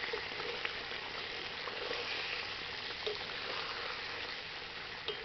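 Bombay duck curry simmering and bubbling in a metal kadai, being cooked on a low flame, with a few light clicks of a metal spatula against the pan as it is gently stirred.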